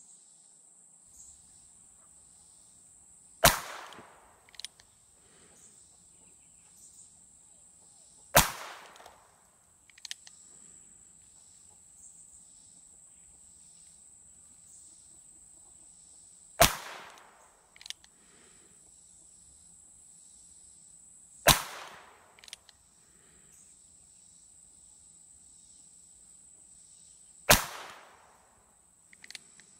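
Ruger single-action revolver firing .22 Short rounds: five sharp shots several seconds apart, each ringing off briefly and followed about a second later by a much fainter click. A steady high insect buzz runs underneath.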